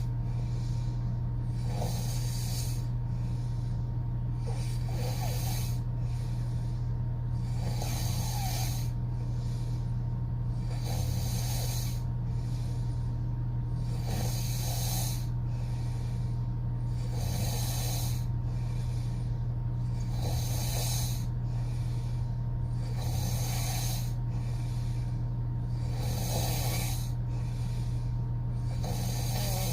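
A woman snoring through an open mouth, a breathy rasp about every three seconds, over a steady low hum.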